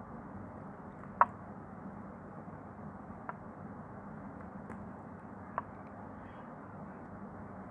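Bar of soap being carved with a knife: a few sharp clicks of the blade cutting and snapping through it, the loudest about a second in and two smaller ones later, over a steady hiss.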